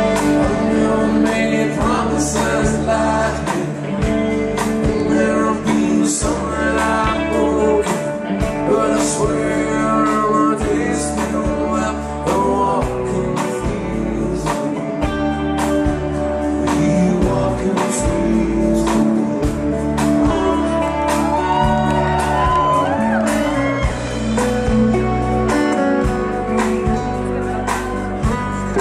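Live band playing a song with a lead vocal: electric bass, drums and guitars under the singing, with a steady beat.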